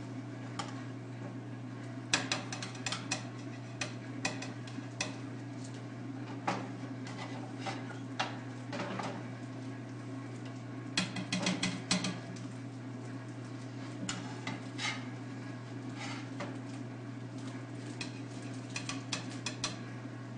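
A metal utensil scraping and clinking against a pan and plate in irregular bursts as cooked eggs are lifted out and served, the loudest run of clinks about halfway through. A steady low hum runs underneath.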